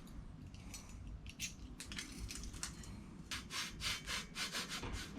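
Rapid scraping and rubbing strokes from hands working the bike's seat-post light to change its low batteries. The strokes are sparse at first and come quickly from a bit past halfway.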